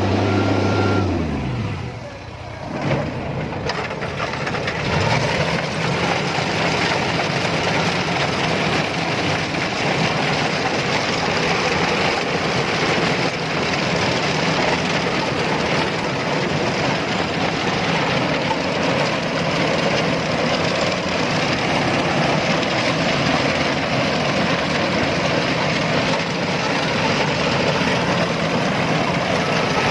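Rice combine harvester's engine and machinery running under load. The sound dips briefly about two seconds in, then picks up again with a knock and runs steadily.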